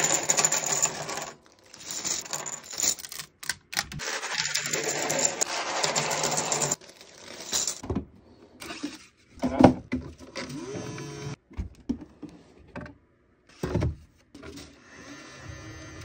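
Small 3D-printed plastic swatches popping off a flexible build plate and clattering onto a bench in three dense bursts. After that, a few separate clicks and knocks as filament spools are handled in a printer's spool feeder.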